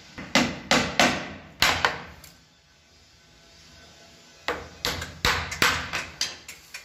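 Wooden-handled steel hammer driving small nails into a white laminated board: a run of sharp blows, a pause of about two seconds, then a quicker run of blows.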